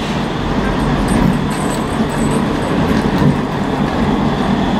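Articulated low-floor tram passing close by on street track: a steady, loud running noise of wheels on the rails, with a thin steady high tone over it.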